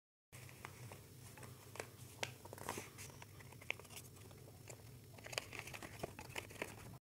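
Paper being folded and creased by hand: soft crinkling and rustling with scattered crackles, over a faint steady low hum.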